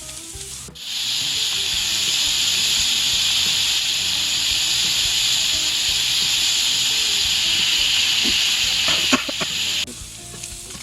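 A loud, steady, high-pitched hiss that starts suddenly about a second in and cuts off abruptly near the end, with a few clicks just before it stops.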